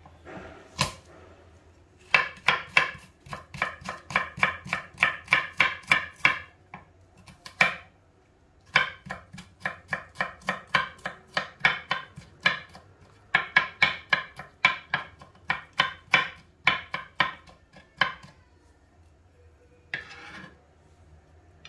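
A kitchen knife finely chopping a clove of garlic, in quick runs of strokes about four a second with short pauses between runs.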